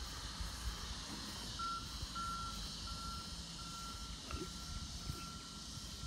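Faint repeated beeping: short, even beeps at one steady pitch, about three every two seconds, starting a little under two seconds in.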